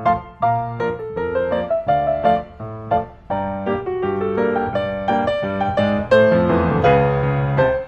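Background music: solo piano playing a gentle melody over chords, notes struck and left to ring.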